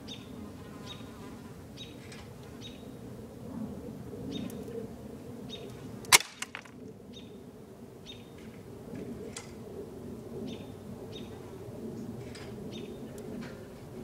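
A single sharp gunshot about six seconds in, followed by a couple of faint clicks, over a steady low hum and short high chirps that come every second or so.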